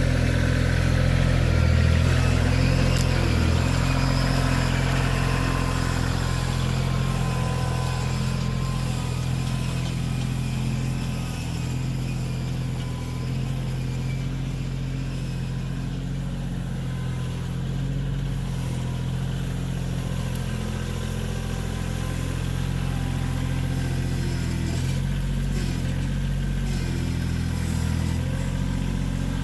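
Wood-Mizer LT15 Go portable band sawmill's engine running steadily at a constant speed.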